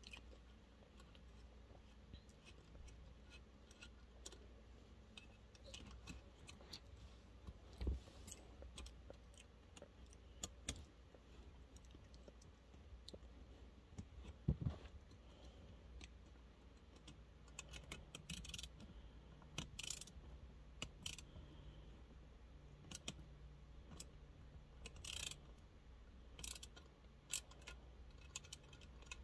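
Faint, scattered clicks and metallic clinks of hand tools and small parts being handled while a toy is taken apart, with two duller knocks, one about a quarter of the way in and one about halfway.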